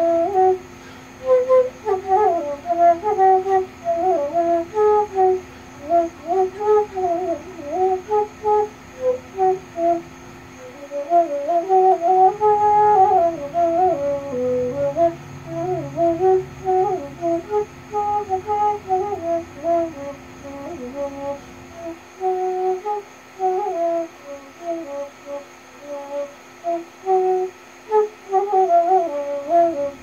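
Side-blown bamboo flute playing a melody of short phrases with bending, sliding notes. A steady high cicada drone runs faintly underneath.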